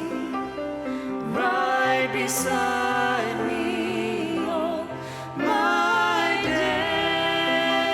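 Church choir and orchestra performing a sacred song, with sung phrases over sustained orchestral chords; a brief softer passage about five seconds in before the voices come back in.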